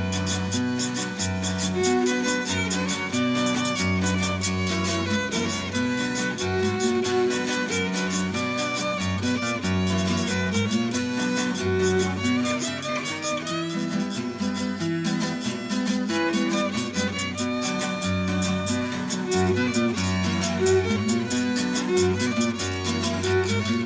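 Instrumental music from a string ensemble: a violin carries the melody over plucked strings and a moving line of low notes, at a steady pace.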